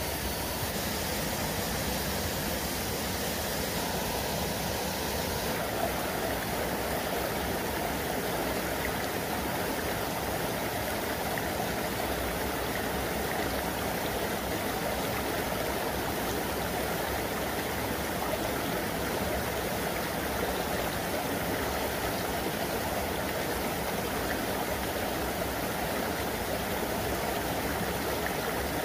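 Steady rush of a small waterfall pouring into a stream pool, a constant even wash of water noise.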